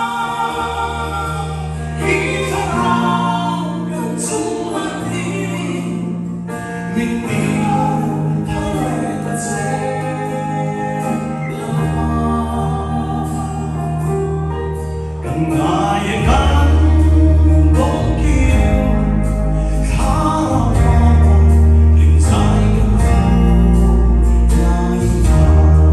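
A man singing a gospel song into a microphone over instrumental accompaniment with deep sustained bass notes; the music grows louder about sixteen seconds in.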